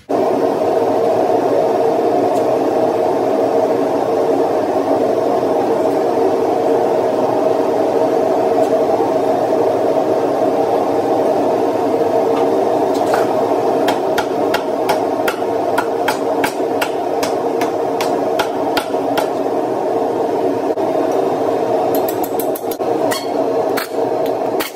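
Loud, steady machine drone in a workshop, starting abruptly. Over its second half come irregular sharp metallic clicks and taps of hand tools on the suspension, with a quick run of clicks near the end.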